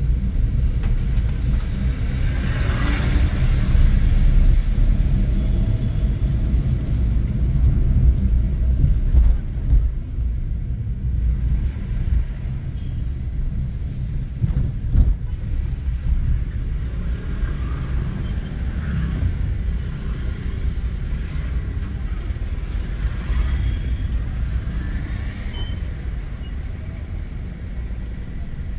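Steady low rumble of a car's engine and road noise heard from inside the cabin while driving.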